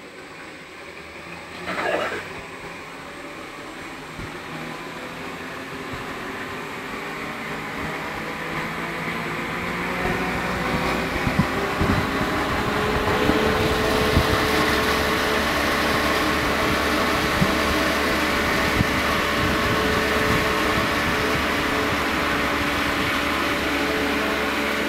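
Electric motor of a small solar-powered flour mill (atta chakki) spinning up: its hum rises in pitch and grows louder over the first ten seconds or so, then runs steadily while grinding wheat, with scattered sharp ticks as grain feeds through. It is still below full load because the sun is not yet strong.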